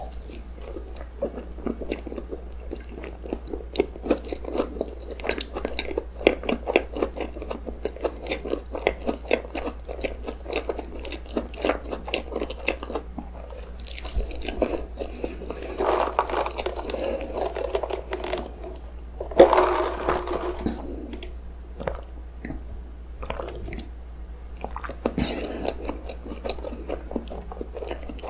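Close-miked chewing of soft cream-filled roll cake: steady small mouth clicks and smacks, with two louder stretches a little past the middle.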